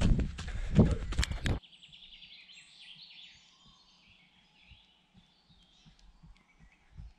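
A runner's footfalls close to a handheld camera, loud and rhythmic, cutting off abruptly about a second and a half in. Then a quiet forest with small birds chirping and faint, soft footfalls.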